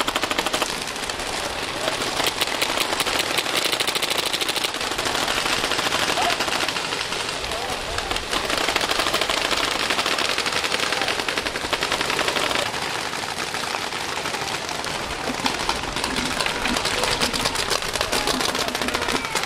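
Several paintball markers firing rapidly and continuously, a dense crackle of overlapping shots.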